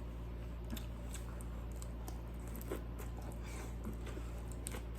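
Faint close-up chewing with small wet mouth clicks, over a steady low hum.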